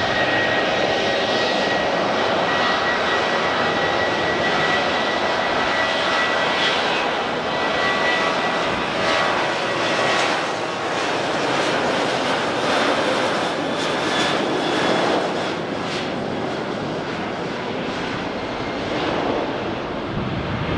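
Boeing 737-800's CFM56 turbofan engines running at high power for takeoff on a rain-soaked runway: steady jet noise with a high fan whine held through roughly the first eight seconds.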